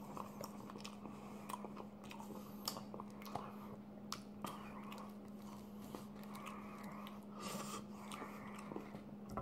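A person chewing a mouthful of Big Mac with the mouth closed, with small wet clicks of the mouth scattered throughout, over a faint steady low hum.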